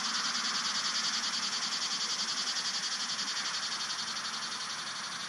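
Steady chorus of insects: a high shrill buzz that pulses rapidly and evenly, easing slightly in level toward the end.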